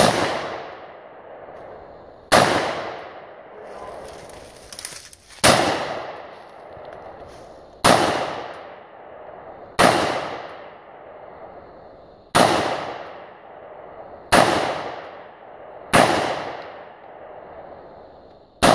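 AR-15 rifle fired in slow semi-automatic single shots, nine shots about two seconds apart, each bang followed by a long echo that fades away.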